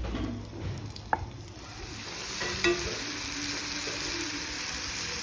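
Chopped onions going into hot ghee in a kadai, the sizzle swelling about two seconds in and then frying steadily, with a spoon clinking against the pan a couple of times.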